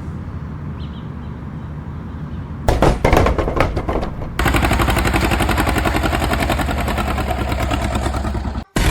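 Tractor's diesel engine running with a steady low chug. A little over two and a half seconds in come several loud bangs, then a loud, fast, even clatter of repeated hits that cuts off suddenly near the end.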